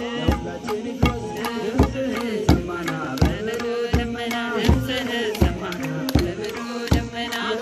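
Ethiopian kebero drum beaten in a steady beat, one heavy stroke about every 0.7 seconds, with a group of voices singing along.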